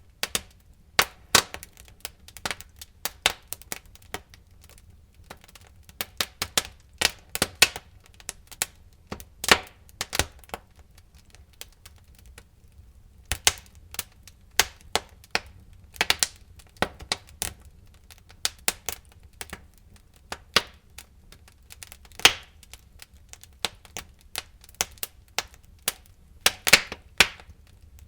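Wood fire burning in a fireplace, crackling with irregular sharp pops and snaps, several a second in clusters with brief lulls.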